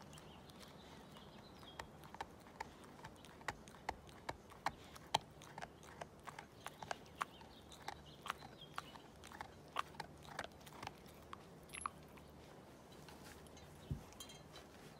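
Black Labrador chewing and biting at a knotted fabric-strip toy, making an irregular run of short, sharp clicks of teeth and jaws, a few a second, that stop about three-quarters of the way through. A single dull thump comes near the end.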